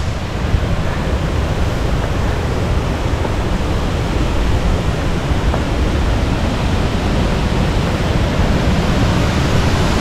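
Steady, even rush of a waterfall's fast-flowing water.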